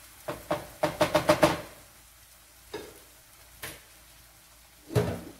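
A quick run of about six knocks with a short metallic ring, a spatula being tapped on the rim of a frying pan to shake off masala. Then two small clicks and a heavier thump near the end, utensils being set down.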